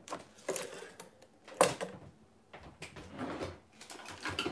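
A low kitchen drawer opened and rummaged through: a smaller knock about half a second in, a sharp loud knock about a second and a half in, then softer clattering and rustling of things being handled.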